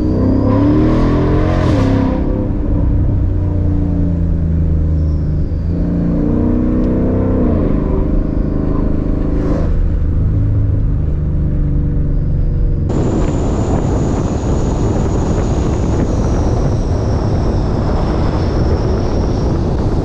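Ford Mustang V8 engine and exhaust on the move, its pitch rising and falling as it revs up and eases off. About thirteen seconds in, the sound changes suddenly to a steady rush of road and wind noise with a faint high whine.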